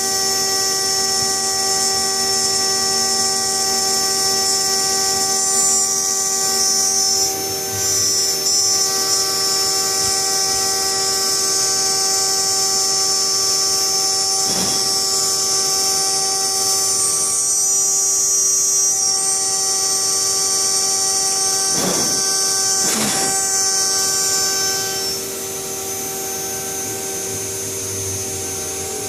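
CNC milling machine running as it machines a turbine diffuser: a steady high spindle whine with several held tones and a hiss, with a few brief pitch dips near the middle. It gets quieter a little before the end.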